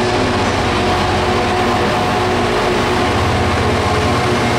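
Class 66 diesel locomotive's EMD two-stroke V12 engine running as it hauls a freight train past at close range: a loud, steady engine drone with a fast low throb.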